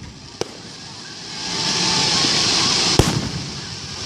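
Fireworks going off: a sharp bang about half a second in, then a rising hiss of crackle, and a louder bang about three seconds in.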